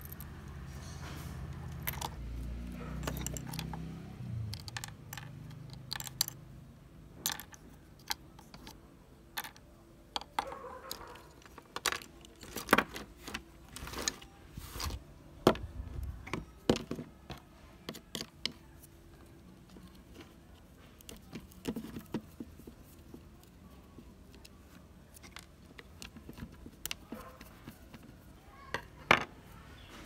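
Irregular clicks, taps and light rattles of small plastic parts and screws being handled and set down on a wooden workbench while a mud-caked RC car's gearbox is dismantled. A low rumble runs under the first few seconds, and a sharp click near the end is the loudest sound.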